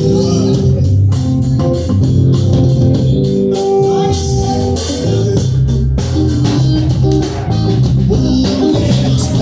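A band playing an instrumental passage of a gospel song, with guitar over bass guitar and a drum kit, without vocals.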